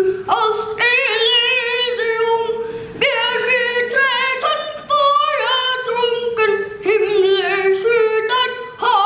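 A young boy singing solo and unaccompanied into a handheld microphone. His high child's voice holds long notes one after another.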